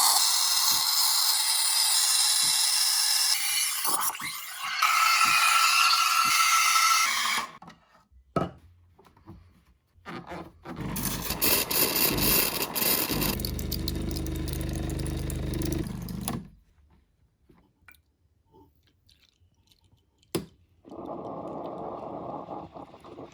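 Rondell RDE 1105 coffee machine working: about seven seconds of loud hissing, a few clicks, then about six seconds of hissing over a low hum. A quieter rushing sound starts near the end.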